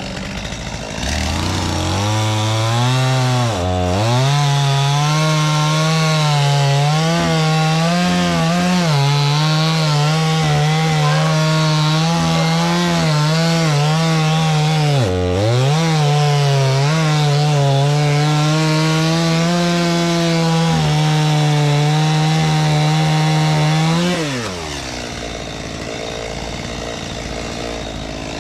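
Two-stroke chainsaw revved up and held at high speed, cutting wood. The engine pitch sags briefly twice under load, then drops back to idle near the end.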